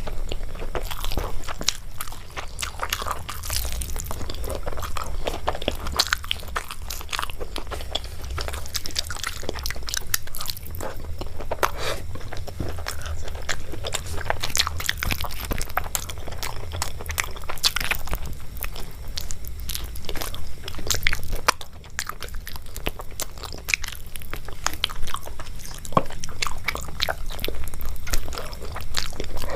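A person eating close to the microphone: steady chewing and biting with many small sharp, wet clicks and crunches, over a low steady hum.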